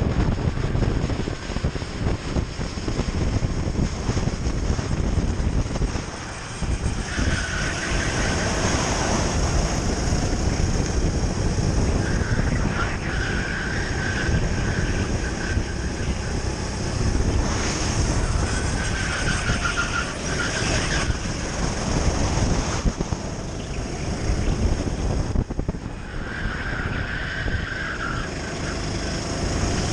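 Onboard sound of a Sodi RT8 rental kart at racing speed: its four-stroke engine running under load, with wind buffeting the microphone. A high whine comes and goes several times.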